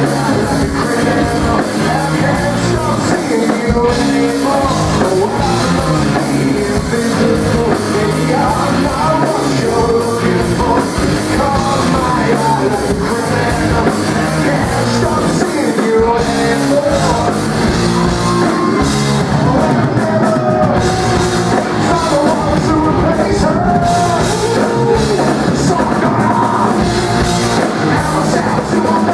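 Live rock band playing loud, with drum kit, guitars and a singing voice, as heard from the crowd.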